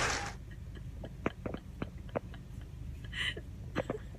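Low, steady rumble inside a moving car, with a few faint, irregular clicks. A loud rush of noise cuts off just after the start.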